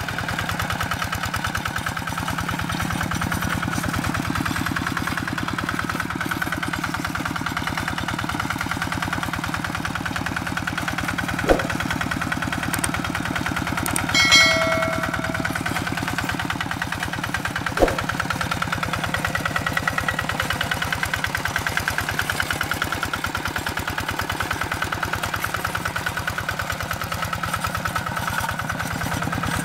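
Single-cylinder engine of a Quick Impala two-wheel hand tractor running steadily under load while plowing, with an even rapid firing beat. Near the middle come two sharp clicks and a short bell-like chime from a subscribe-button sound effect.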